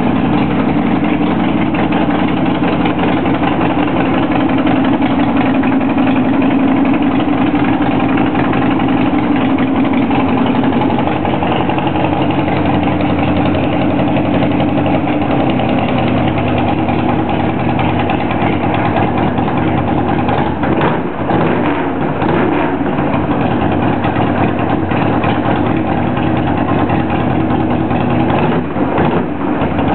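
A 1999 Harley-Davidson Sportster's air-cooled V-twin running steadily at idle, with a couple of brief dips in level about two-thirds of the way through and near the end.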